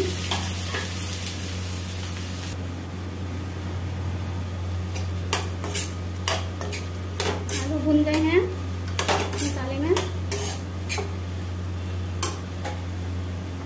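A steel spoon stirring diced boiled potatoes in a metal kadhai: repeated clinks and scrapes against the pan's sides and bottom, with a few short squeaky scrapes, starting about five seconds in. A hiss of frying in the first couple of seconds, and a steady low hum underneath.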